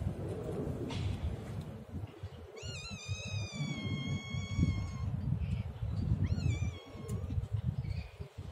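A cat meowing twice: one long, high, drawn-out meow that falls slightly in pitch, then a short meow about six seconds in.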